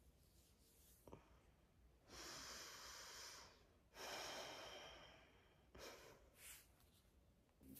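A person's faint breathing on waking: two long, soft breaths of about a second each, the second starting about four seconds in, then a couple of shorter ones.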